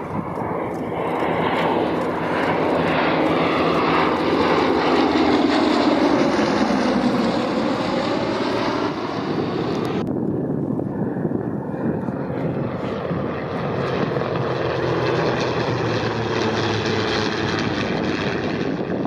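Two Westland Lysanders flying past, their radial engines and propellers droning loudly, with the pitch dipping and rising as they pass. About halfway through the sound abruptly turns duller.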